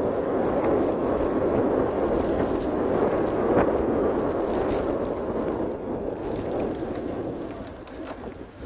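Bicycle riding on an asphalt lane, heard from a camera on the bike: a steady rush of tyre and wind noise with a couple of light clicks, dying down near the end.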